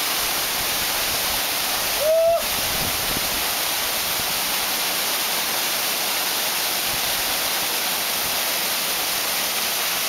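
Waterfall pouring steadily onto rocks and a pool close by. About two seconds in there is a short, high cry from a person.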